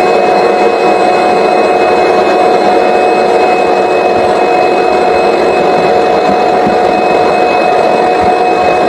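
Vacuum motor running steadily with a constant high whine, pulling lint out of a clogged dryer vent.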